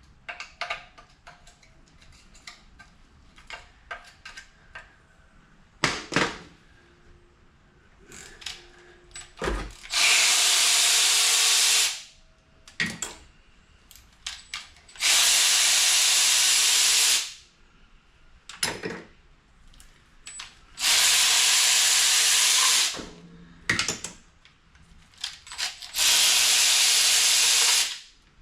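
A power tool run in four bursts of about two seconds each, a few seconds apart, with a strong hiss over a steady motor tone, backing bolts off an LS engine during teardown. Metal clicks and clanks of parts being handled fall between the bursts.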